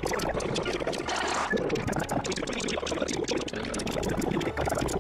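Muffled, garbled voices from quoted television footage, buried in a dense rushing noise.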